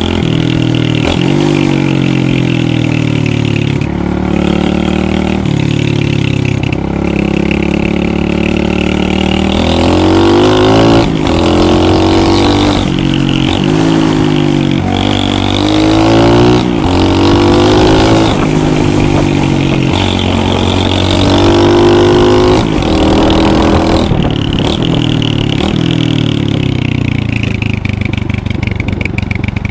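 Lifan 125cc pit bike's single-cylinder four-stroke engine running hard, its pitch rising and dropping back again and again as the throttle opens and closes or the gears change. It is loudest and busiest in the middle stretch.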